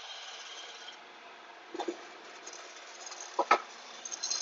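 Shopsmith conical sanding disc spinning, with the steady hiss of a steel jointer knife's bevel grinding on the abrasive that fades about a second in as the pass ends. Then a couple of sharp knocks from the metal sharpening jig being handled, the loudest about three and a half seconds in, and a short bright metallic clink near the end.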